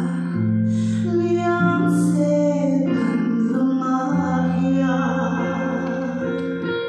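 A woman singing a gospel song into a microphone, over instrumental accompaniment with long held chords.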